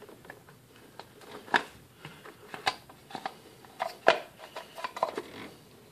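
Distributor cap being fitted onto the distributor of a 1994 Toyota Corolla 7A-FE engine by hand, giving a string of irregular clicks and knocks as it is worked into place, the sharpest about one and a half, two and a half, and four seconds in.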